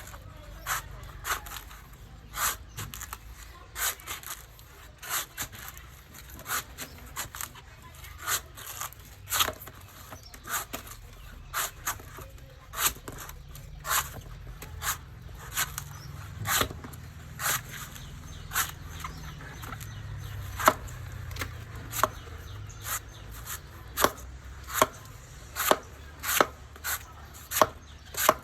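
A blade chopping into a coconut: a steady run of sharp chops, about one or two a second.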